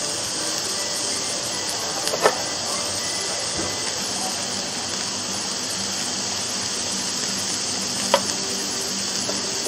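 Enoki mushrooms, snow peas and a chili pepper sizzling on an open electric contact grill, a steady hiss. Metal tongs click sharply against the grill plate twice, about two seconds in and near the end.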